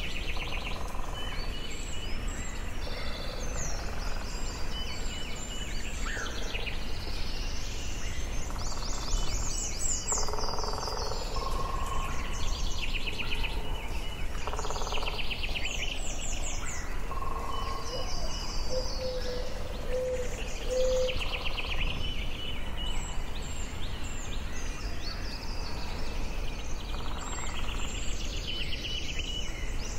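Forest bird chorus: several birds singing and calling at once, with rapid trills and repeated chirps overlapping throughout, over a steady low background rumble.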